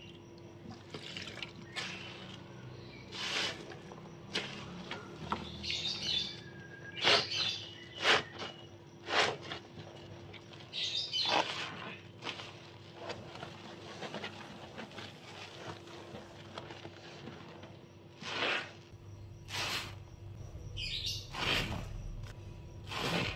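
Soap-soaked sponge squeezed and squished in a sink of suds, giving repeated wet squelches, with birds chirping now and then.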